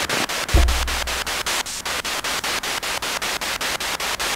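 Wonderbox spirit box sweeping through radio static over a small amplifier speaker, chopped into rapid even pulses about eight a second as it scans stations for ghost-box 'spirit communication'. A low thump sounds about half a second in.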